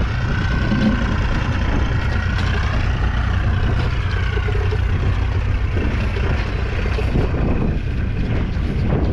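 1986 Ford 7710 II tractor's 4.4 litre four-cylinder diesel engine running steadily.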